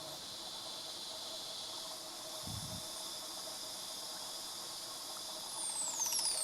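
Steady insect chorus buzzing in rainforest, with a short low thud about two and a half seconds in. Near the end, a male crested oropendola gives a loud falling whistled call that sweeps from very high to mid pitch.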